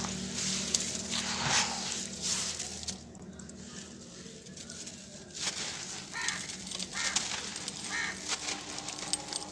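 Hands crumbling dry sand-cement and charcoal chunks: gritty crunching with grains and dust pattering down, quieter for a couple of seconds in the middle.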